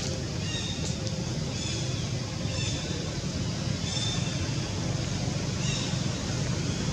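Steady low rumble of outdoor background noise, with faint short high chirps repeating about once a second.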